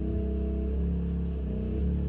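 Background music: low, held instrumental notes changing in steps about every half second.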